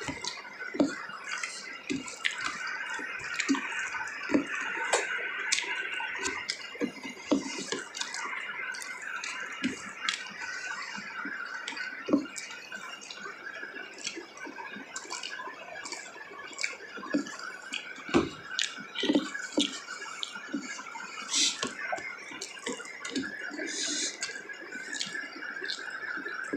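Close-up eating sounds: wet chewing and irregular mouth clicks and smacks, with now and then a light clink of dishes, over a steady faint hiss.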